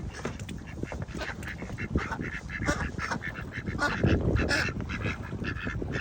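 Ducks quacking, a run of short repeated calls that grows busier about two seconds in, over a low rumbling noise.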